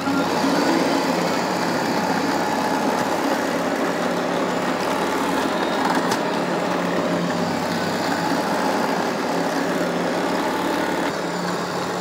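Shark AV2501S robot vacuum running on carpet: a steady whir from its suction motor and brushes, with a faint hum in it.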